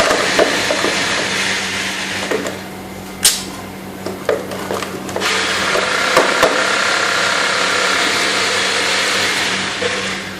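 Power tool running steadily from renovation work next door, easing off for a couple of seconds in the first half, with a sharp click about three seconds in.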